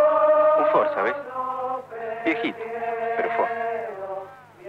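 Music: chanting voices hold long notes together, with brief pitch slides, fading near the end.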